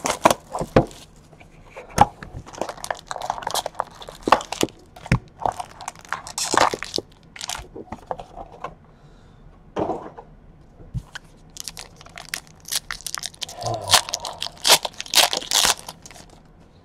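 Cellophane shrink wrap crinkling and tearing as it is stripped off a 2016 Elite Extra Edition baseball card box, followed by the cardboard box being opened and its foil card packs handled: irregular crackles, rustles and sharp clicks.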